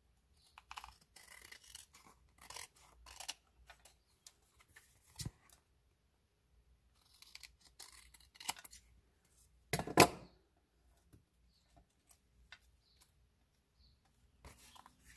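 Scissors cutting through card stock, trimming a strip off a card panel in two runs of short scratchy snips with a pause between them. A single sharper knock about ten seconds in is the loudest sound.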